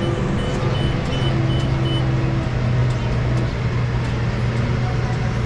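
Tractor engine running steadily while pulling a seed drill across the field. In the first two seconds it is joined by a row of short, high electronic beeps, about two or three a second.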